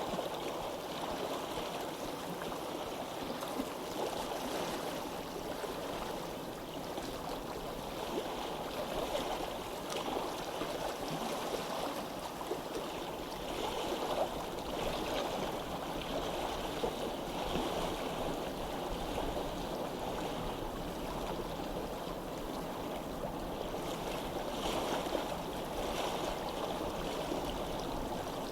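Stream water flowing steadily, an even rushing babble with small splashes scattered through it.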